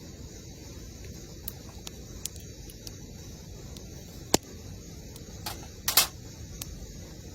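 Campfire burning with a low steady hiss and scattered sharp pops of crackling wood, two louder pops about four and six seconds in.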